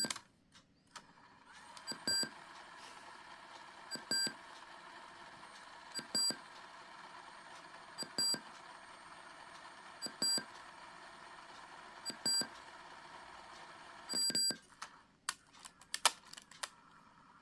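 Short, high electronic beep repeating about every two seconds, each with a small click just before it. Near the end comes a longer double beep, followed by a few scattered clicks.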